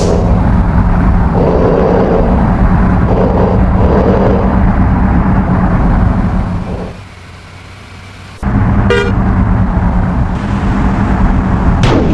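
Bus engine running loudly, with a few short horn toots in the first few seconds and a brief higher toot past the middle. The sound drops away for about a second and a half just past the middle, then the engine comes back suddenly.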